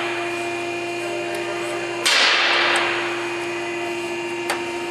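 A sudden loud crack about two seconds in whose hiss fades over about a second, then a short sharp click near the end, over a steady hum.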